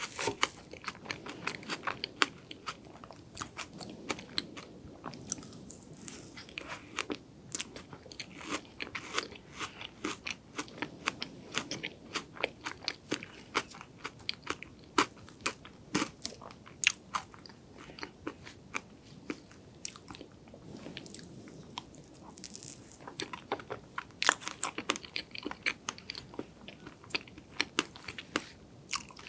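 Close-miked chewing of chocolate strawberry sand cake that is not yet fully thawed. Its icy layers crunch like thin ice in many quick, sharp crunches and clicks.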